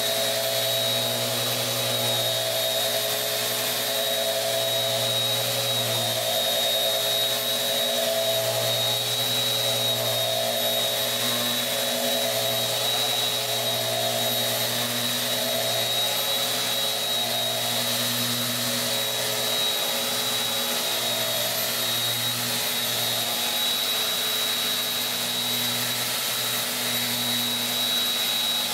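Bosch GET 75-150 eccentric sander running steadily as it sands a pine board, its dust-extraction hose drawing air, giving a constant motor hum with a high whine.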